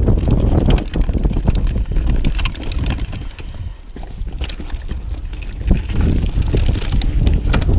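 Mountain bike riding downhill over a rough dirt trail. Tyres rumble over the ground, and the chain and frame keep up a clattering rattle with sharp knocks over bumps, while wind buffets the microphone. It eases off somewhat about halfway through.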